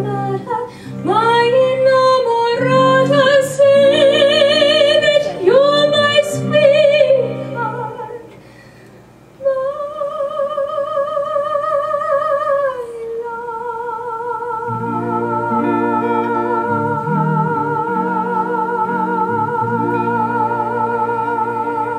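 Female vocalist singing into a microphone, accompanied by piano and guitar. After a short break about eight seconds in, she holds one long closing note with vibrato for about nine seconds over sustained chords.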